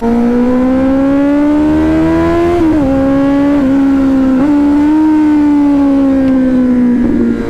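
Kawasaki Z900's inline-four engine held at high revs. Its note climbs slowly for the first two and a half seconds, dips briefly three times in the middle, then eases gradually lower.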